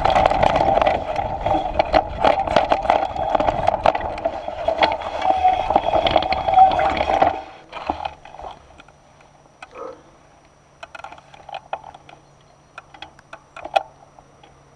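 Mountain bike riding fast down a dry dirt trail: knobby tyre noise, wind and the rattle and clatter of the bike over rough ground. It stops abruptly about seven seconds in, leaving only faint scattered ticks and a low steady hum.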